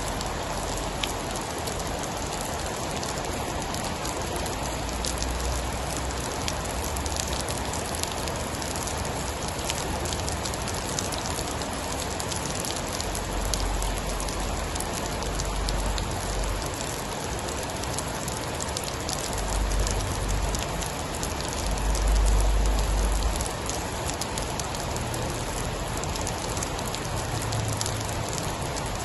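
Steady heavy rain with fine, dense pattering ticks. Low rumbles swell under it several times; the strongest comes about 22 seconds in.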